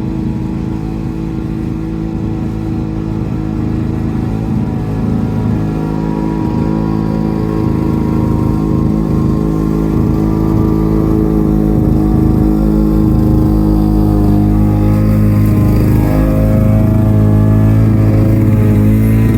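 Small lawn mower engine running steadily at speed, its pitch wavering slightly as the load changes, growing gradually louder.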